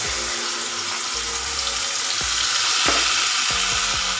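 Water-thinned spice paste sizzling steadily in hot oil in a kadai as it is spooned in.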